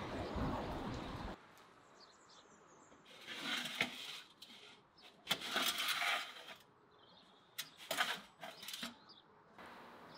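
Wind rumble on the microphone for about a second, then a few short scraping and rustling handling noises with sharp clicks as baked meat pide is slid out of an oven with a cloth.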